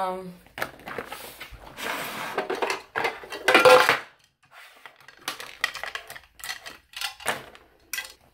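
Makeup products clicking and clattering against a clear acrylic drawer organizer as they are taken out of a makeup bag and put away, with a louder rattle about three and a half seconds in. An acrylic drawer is pulled open near the end.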